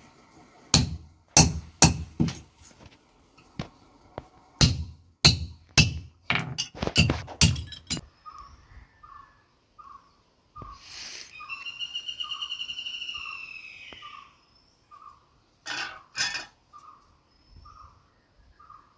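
Hammer blows on steel at the anvil, about a dozen ringing strikes in two bursts, irregularly spaced. After that, quieter evenly repeated short chirps and a longer pulsing call a few seconds long.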